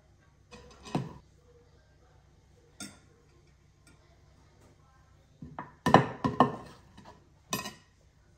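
Black slotted skimmer scooping steamed couscous from a glazed clay dish and knocking against a steel couscoussier pot as the grains are tipped in: a few scattered clacks and scrapes, busiest about six seconds in.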